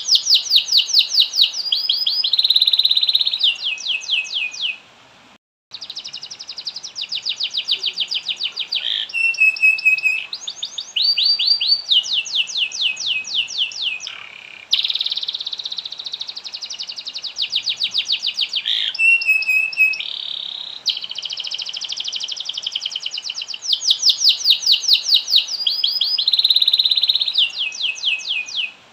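Domestic canary singing a long song of rapid, evenly repeated trills and rolls mixed with buzzy held notes, breaking off briefly about five seconds in.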